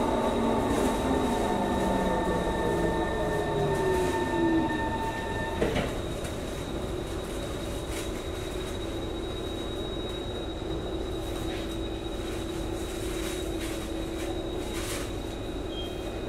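Singapore MRT train heard from inside the carriage, its motor whine falling in pitch as it slows, with some wheel squeal. About five and a half seconds in there is a sharp click, and after that only a steady, quieter hum is left, as of the train standing still.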